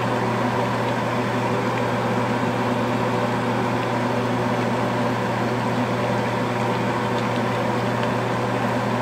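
Steady low electrical hum of a running kitchen appliance, one deep tone with overtones and a faint hiss over it, unchanging throughout.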